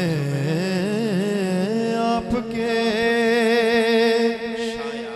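Male naat reciter singing into a microphone, drawing the words out in long, ornamented held notes with vibrato over a steady low drone.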